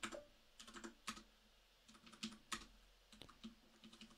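Computer keyboard keystrokes, faint and irregular, a few taps at a time with short pauses between.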